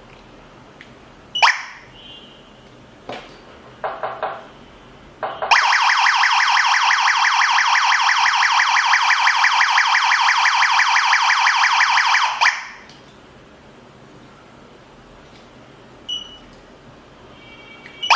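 A GSM home alarm system's siren sounds for about seven seconds as a loud, rapidly pulsing tone, then cuts off. Short beeps and clicks, like touch-screen key tones, come before and after it.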